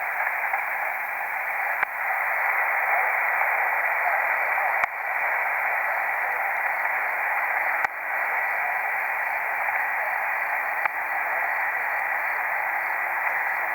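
Pocket shortwave receiver's speaker giving steady, narrow-band static hiss with a faint steady tone and a soft click about every three seconds. A weak station is barely hinted at under the noise, too faint to make out.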